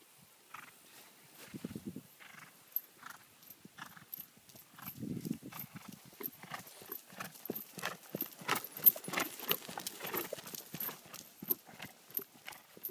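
Quick, regular hoofbeats of a gaited walking horse stallion moving under a rider on grass. They grow louder as the horse comes close and are loudest a little past the middle, then ease off slightly.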